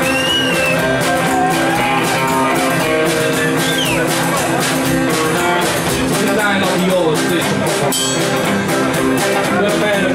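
Rockabilly band playing live, guitar to the fore over a steady beat.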